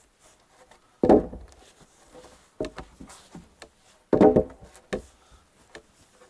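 Two heavy wooden thuds about three seconds apart, with lighter knocks and clatter between them.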